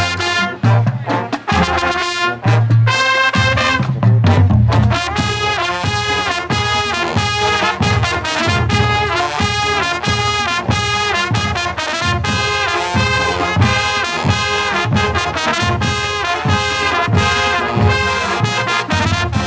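High school marching band playing a brass-heavy tune, trumpets and trombones over a steady low beat.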